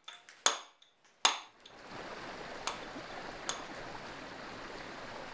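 Mallet striking a hand chisel into stone twice, each blow a sharp ringing clink, then a stream or small waterfall rushing steadily from a little under two seconds in.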